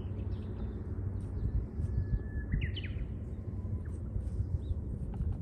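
Outdoor hillside ambience: a steady low rumble of wind on the microphone, with a bird giving a short burst of chirps about halfway through and faint chirps elsewhere.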